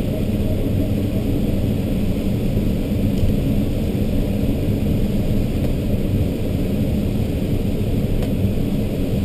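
Steady rush of air over the canopy of an ASK-21 two-seat glider in flight, heard from inside the cockpit. There is no engine, only airflow, which stays even throughout.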